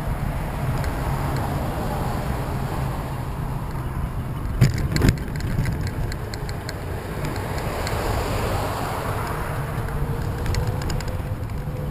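Steady rolling noise of wheels on an asphalt path, with two sharp knocks about four and a half seconds in and a run of light ticks near the end.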